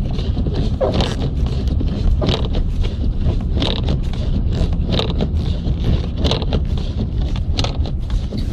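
Car interior while driving: a steady low engine and road rumble, with a short swishing tick repeating regularly about every two-thirds of a second.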